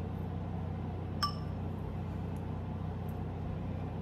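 A single light clink of kitchenware, a utensil or dish tapping the serving bowl, about a second in, with a short ring. A steady low hum runs underneath.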